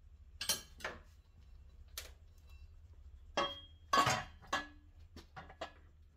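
Metal wheel rim knocking and clinking against the post of a Harbor Freight tire changing stand as it is set down onto it: about ten separate sharp metal clanks, a few ringing briefly, the loudest about four seconds in.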